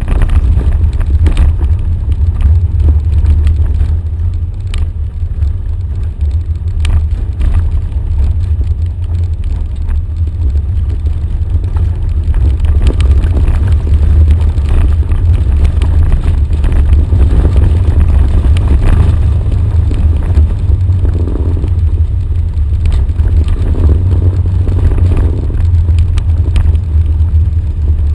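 Off-road vehicle driving down a rough dirt track: a loud, steady low rumble of engine and tyres on the dirt, with scattered small knocks from the rough ground.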